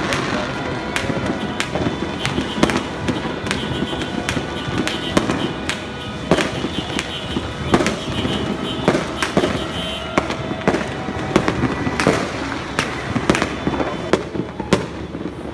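Fireworks going off: a dense, irregular run of sharp bangs, about one to two a second, over continuous crackling and hiss.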